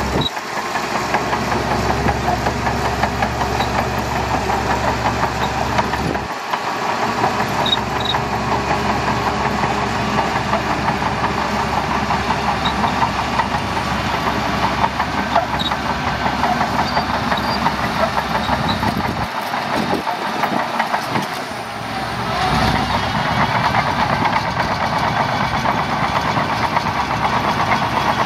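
Shantui DH17C2 bulldozer's diesel engine running steadily as the dozer works sand.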